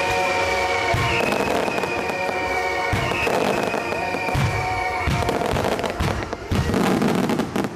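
Rapid-fire starmine fireworks bursting and crackling over the closing bars of the show's music, the crackling densest near the end. Music and bursts cut off together, suddenly.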